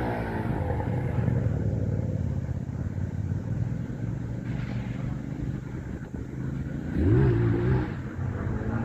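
A motor vehicle's engine running steadily, with a short rev rising in pitch about seven seconds in.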